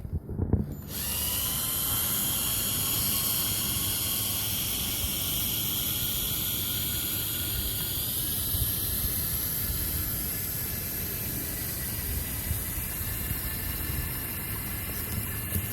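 A power drill spins a dryer vent cleaning brush on rod extensions inside the vent duct. It starts about a second in, with a slight rise in pitch, then runs steadily as a whine over a scrubbing hiss.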